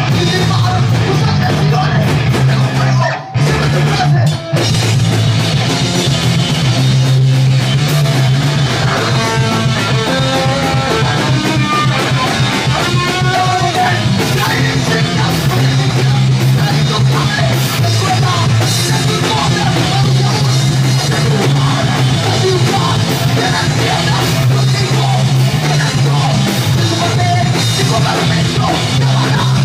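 Rock band playing live and loud: drum kit, electric guitars and bass, with a singer's voice over them. The band breaks off for two very short stops about three and four and a half seconds in.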